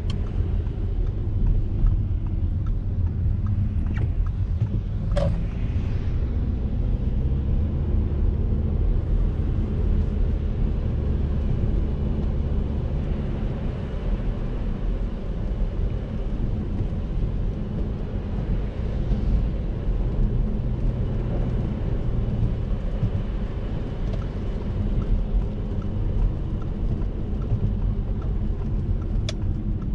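Cabin noise of a 2012 Audi A7 3.0 TDI V6 diesel driving on a wet road: a steady low rumble of engine and tyres with the hiss of wet tarmac. A few brief sharp clicks or knocks come around four to five seconds in and again near the end.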